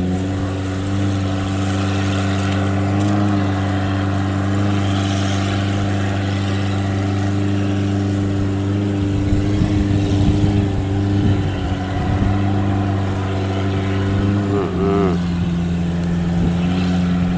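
Engine of a small farm machine running steadily as it moves through a soft rice paddy, with an irregular rattle about halfway through and a brief dip in engine pitch near the end.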